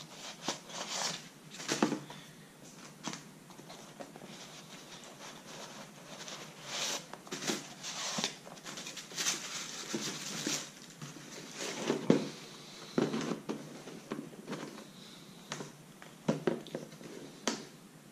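Tissue paper crinkling and rustling in irregular bursts as it is pulled out of a cardboard shoebox, with a few soft knocks from handling the box.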